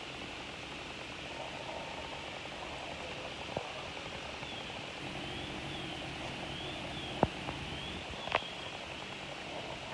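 Sounds of a burning house: a steady rushing noise, broken by sharp cracks about 3.5, 7 and 8.5 seconds in, the one at 7 seconds the loudest. A faint warbling high tone rises and falls for a few seconds in the middle.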